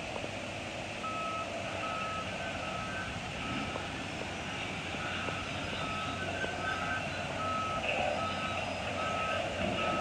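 Heavy equipment's reversing alarm beeping steadily, a little faster than once a second, starting about a second in, over the running engine of the machine.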